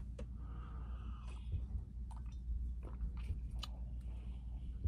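Mouth sounds of a man sipping coffee from a stainless steel tumbler: a few faint, short clicks and slurps over a steady low hum.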